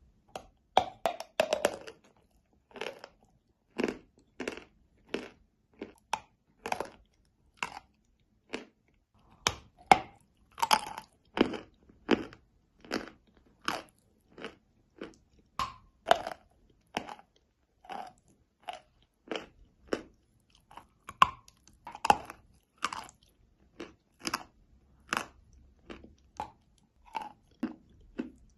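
Close-miked crunching of edible chalk being bitten and chewed, in short crisp crunches about one to two a second with brief pauses between them.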